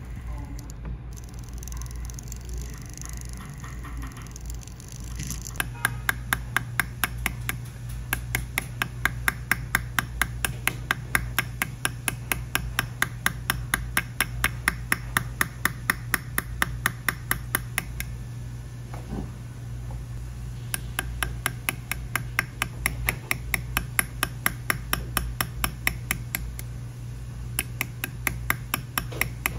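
Jeweller's hammer handpiece tapping its setting tip against a gold pendant during diamond pavé setting: even, sharp metallic taps about four a second over a steady low hum. The tapping starts about five seconds in, stops for a few seconds in the middle and resumes.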